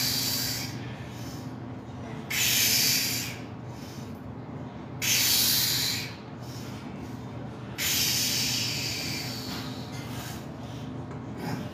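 Forceful hissing exhalations of a lifter straining through a heavy 315-pound barbell bench press: four sharp breaths, each about a second long, one with each rep roughly every two and a half seconds.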